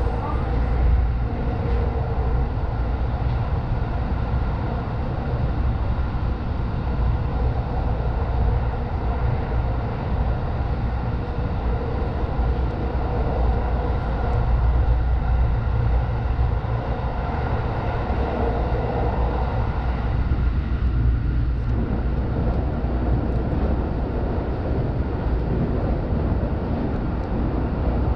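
Electric commuter train running at speed, heard from inside the passenger car: a steady low rumble of wheels on the rails. About three-quarters of the way through the sound changes as the train runs onto a steel truss bridge.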